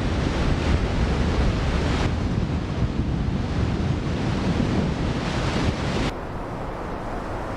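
Strong wind buffeting the microphone in a snow squall, a dense rumbling rush of noise heaviest in the low end. The sound changes abruptly about two seconds in and again about six seconds in, turning quieter after the second change.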